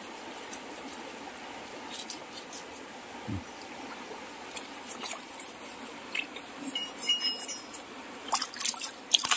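Shallow river water lapping and trickling around hands rinsing small fish, with scattered small splashes and drips that come thicker near the end.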